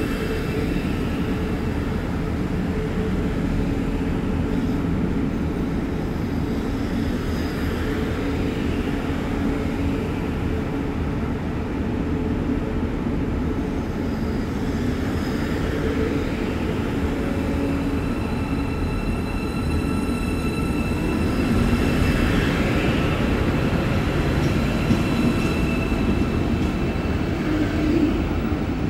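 KTX-Eum electric multiple unit departing a station, its cars rolling past close by with a steady rumble and a faint, steady high whine. The sound grows a little louder in the last third.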